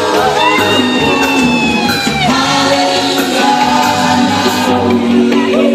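Live gospel music: a vocal group singing long held notes in harmony over a steady low beat.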